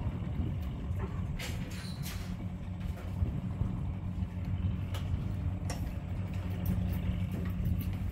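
An engine runs steadily at a low, even pitch, with a few short knocks and clatters over it about one and a half, two and five seconds in.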